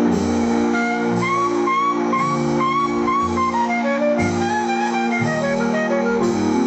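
Instrumental music: a lead melody of short, slightly bending notes that steps downward about four seconds in, over steady held chords.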